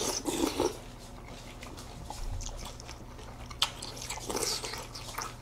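Two people eating Special K cereal in milk close to the microphone: spoonfuls slurped and chunky flakes chewed with a light crunch, with scattered small clicks.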